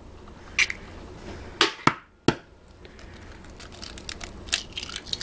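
Eggs being cracked on the rim of a glass bowl: a few sharp taps in the first half, then faint crackling ticks as the shell is broken and pulled apart.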